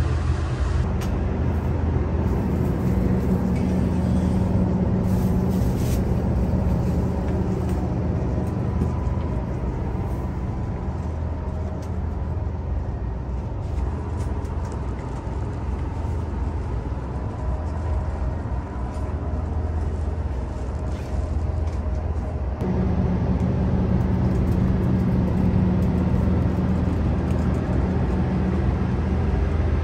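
Diesel engine of a KTR 8000-series railcar idling while the train stands still, a steady low hum heard inside the passenger car. The hum changes abruptly about three-quarters of the way in.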